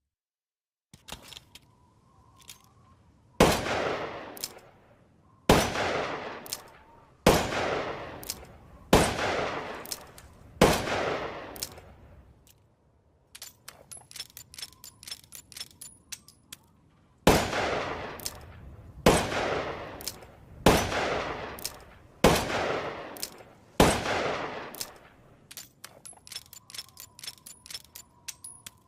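Revolver sound effect: a few light mechanical clicks, then five shots about two seconds apart, each with a long ringing tail. A quick run of clicks from the gun's action follows, then five more shots at the same pace and more clicking near the end.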